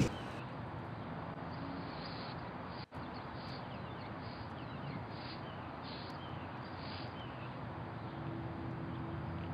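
Steady outdoor background hiss with faint, scattered short high chirps of small birds.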